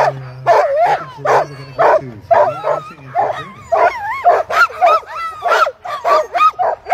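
Harnessed sled dogs barking and yipping in quick succession, two or three calls a second: the excited pre-start clamour of a team eager to run.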